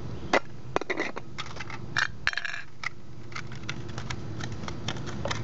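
Light metallic clicks, taps and crinkles of a thin sheet-metal windscreen being handled, with clinks of titanium tent stakes, scattered irregularly and a few ringing briefly.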